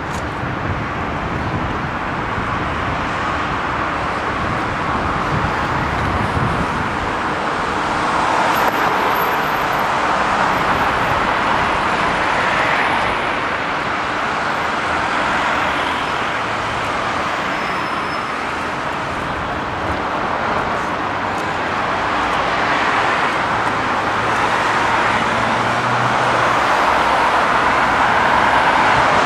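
Steady city road traffic, with cars passing in slow swells.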